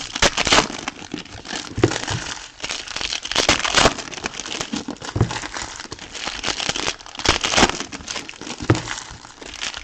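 Plastic wrapping on a trading-card box crinkling and rustling as it is handled and opened, in irregular bursts with a few louder crackles.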